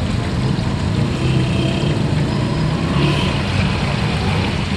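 Pakoras deep-frying in a large iron karahi of hot oil, sizzling and bubbling steadily, over a constant low rumble.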